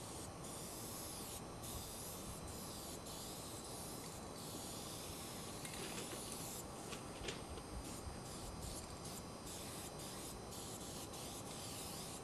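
Aerosol spray-paint can hissing in repeated short bursts, starting and stopping about once a second, as paint is sprayed onto a steel freight car.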